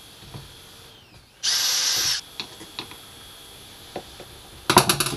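Cordless drill running in one short burst of under a second, boring a hole through a screw hole of a hinge strip into a wooden panel. A few light clicks follow, and near the end comes a brief rattling clatter.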